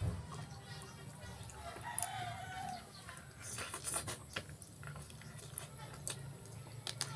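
A rooster crowing, one wavering call about two seconds in, over scattered clicks and smacks of hands tearing and chewing grilled eel.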